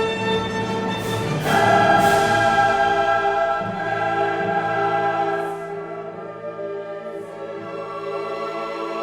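Background music: a choir singing long held chords over an orchestra. It swells about a second and a half in and grows softer past the middle.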